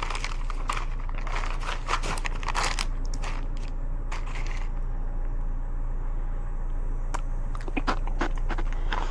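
Rummaging through dumpster trash: plastic and packaging crinkling, crunching and scraping in irregular bursts, busiest in the first few seconds and again near the end, over a steady low hum.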